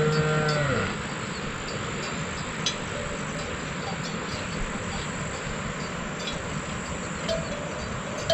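A cow moos once at the start, a low call about a second long that drops in pitch as it ends, followed by a steady background hiss.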